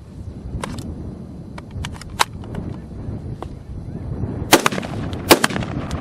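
Two loud, sharp rifle shots about a second apart near the end, firing steel-case .223 Remington ammunition. Several fainter sharp clicks and snaps come before them, over a steady low rumble.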